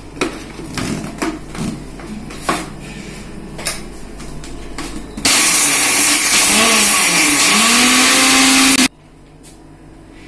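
Prestige mixer grinder running with its small steel jar, grinding dried red chillies and whole spices into masala. It starts about five seconds in, runs loud and steady for about three and a half seconds, then cuts off suddenly. A few knocks come before it.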